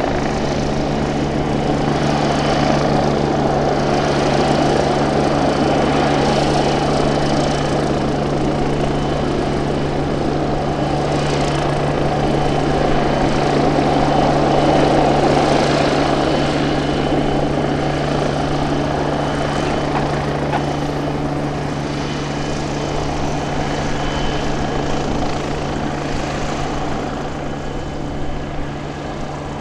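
Light single-engine high-wing propeller plane flying low, its piston engine and propeller droning steadily. The sound swells as the plane passes close in the middle and drops somewhat near the end.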